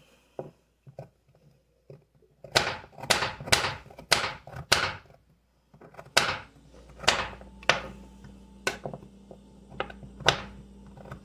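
Paring knife cutting baby carrots on a cutting board: a quick run of sharp knocks about two and a half seconds in, then slower, scattered single cuts.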